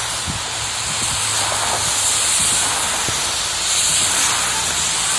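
Rain pelting a car during a thunderstorm, a steady loud hiss, with the low hum of the car running underneath.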